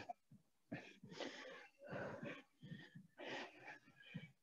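Faint, quick, heavy breaths of a woman holding a plank, picked up close on a headset microphone.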